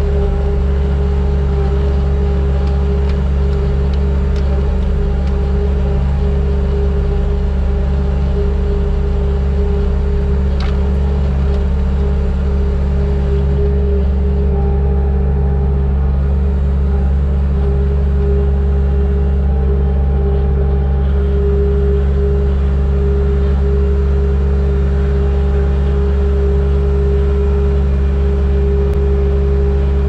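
Vehicle engine running at a constant speed: a deep, unchanging drone with a steady higher whine over it.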